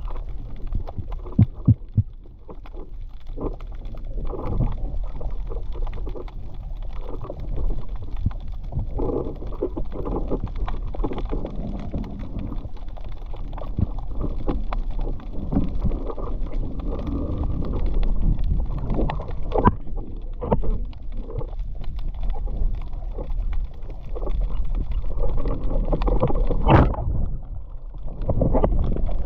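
Muffled water movement with scattered knocks and clicks, dulled as if heard through a camera's waterproof housing, with one sharper knock near the end.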